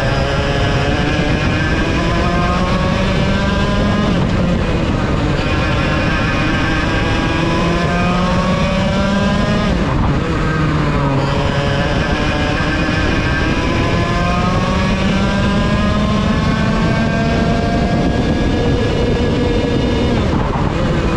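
Vortex VLR 100cc two-stroke kart engine at full race pace: the revs climb steadily for several seconds at a time and fall away sharply three times, about four, ten and twenty seconds in.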